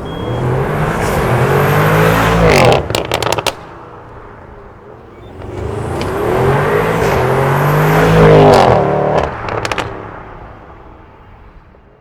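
Audi RS6 C8.5's twin-turbo 4.0 V8, breathing through a catted downpipe with a petrol particulate filter, accelerating hard twice, the engine note rising with each pull. Each pull ends in a quick burst of sharp pops and crackles from the exhaust as the throttle lifts, and the second pull fades away as the car moves off.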